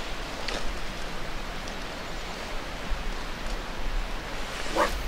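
Steady outdoor hiss with a low rumble underneath, and a brief faint rising sound near the end.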